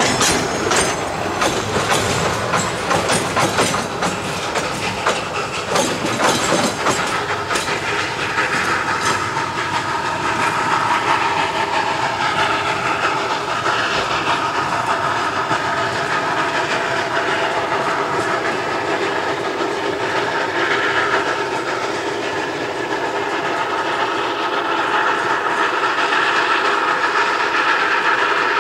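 Narrow-gauge forest railway train running, its wheels clicking over the rail joints at first, then settling into a steadier running sound with a high ringing tone.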